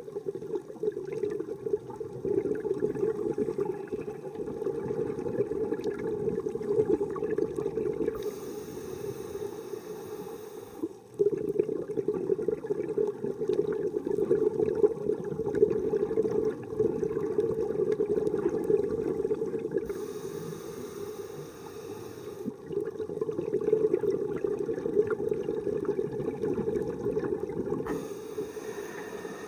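Scuba breathing heard underwater: a steady, muffled rush and crackle of exhaled bubbles. A faint hiss comes back about every ten seconds.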